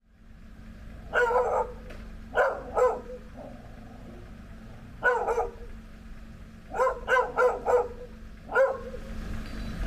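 A dog barking in short irregular bouts, about nine barks in all, with a quick run of four barks around seven seconds in.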